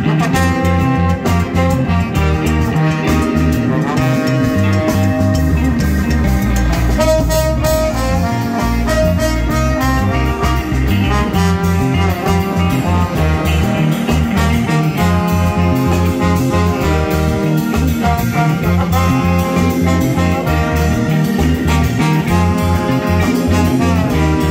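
Live band playing: trombone and saxophone playing horn lines together over electric guitar, keyboard and drums.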